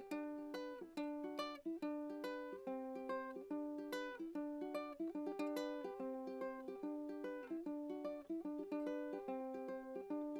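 Solo ukulele playing the instrumental opening of a song: single plucked notes in a steady, repeating pattern, each left ringing into the next.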